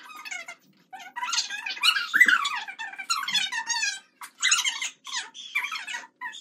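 Girls squealing and giggling in high-pitched bursts, several in a row with short breaks between them.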